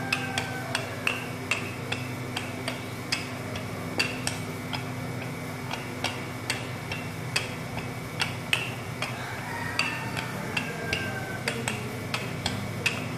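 Wooden rolling pin with handles rolling over layered croissant dough on a marble counter, clicking and knocking sharply and irregularly, about two or three clicks a second, over a steady low hum.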